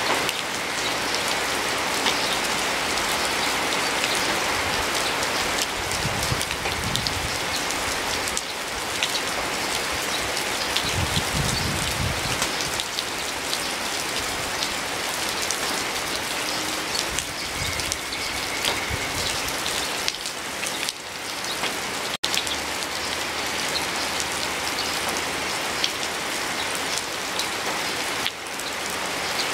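Steady rain falling, with many separate drops heard ticking through the even hiss of the downpour. There is a split-second break about three-quarters of the way through.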